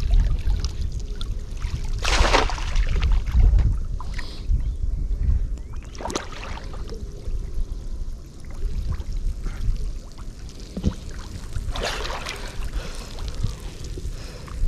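Water sloshing and splashing in a few noisy bursts, about two, six and twelve seconds in, over a steady low rumble.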